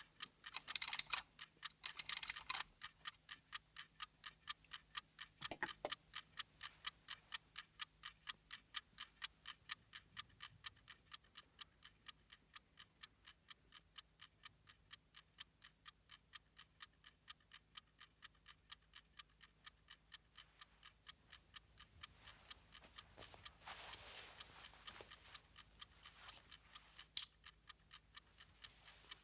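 Small clock ticking steadily, a little over two ticks a second, with a few louder brief noises near the start and about three-quarters of the way through.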